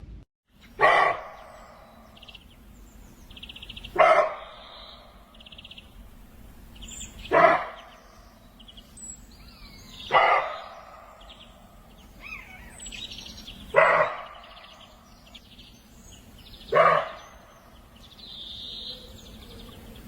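White-tailed deer giving six short, sharp calls about every three seconds, with faint chirping in the background.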